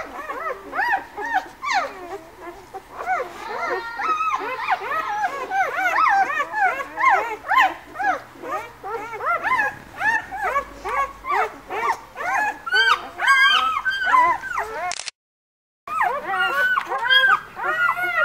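A litter of newborn White Swiss Shepherd puppies squeaking and whimpering as they nurse, many short, high, rise-and-fall calls overlapping several times a second. The sound drops out completely for about a second, about fifteen seconds in.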